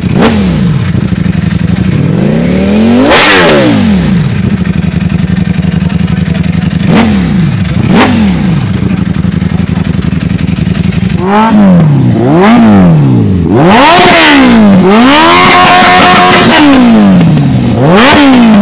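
A superbike's engine idling with a steady beat and blipped up to high revs twice. About two-thirds of the way in, a second sport bike, a green Kawasaki, is revved hard again and again, some revs held high for a moment before dropping back.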